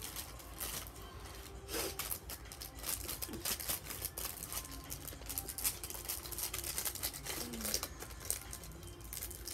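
Light rustling and crinkling with short taps and clicks from small items being handled.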